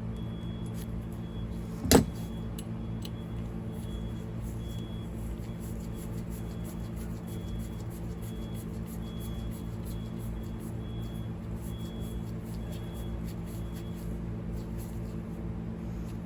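A steady low hum runs throughout, with one sharp knock about two seconds in and faint small clicks and taps of parts being handled.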